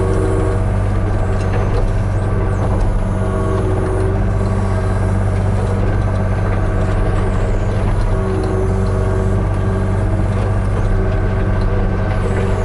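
Hitachi 35U mini excavator's diesel engine running steadily at raised throttle, with a hydraulic whine that rises and fades every second or two as the controls are worked.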